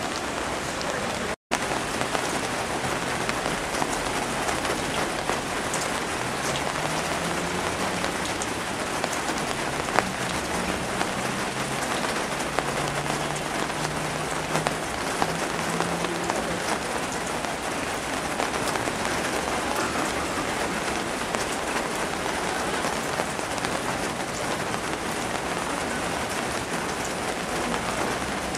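Heavy rain falling steadily on a flooded street and its standing water. A car engine hums faintly through the middle, and the sound cuts out for an instant about a second and a half in.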